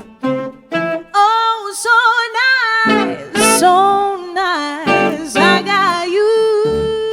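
Swing band music: a held, wavering melody line over short plucked bass notes and guitar, with singing.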